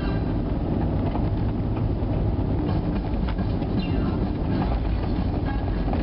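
Steady rumble of a car's engine and tyres on a snow-packed highway, heard from inside the cabin, with scattered light rattles.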